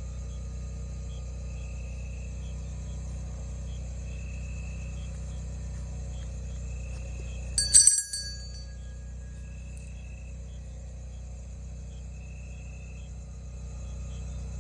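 Night insects calling in a steady repeating pattern over a low steady hum. About halfway through, one sharp, bright clink rings out briefly with several high ringing tones; it is the loudest sound.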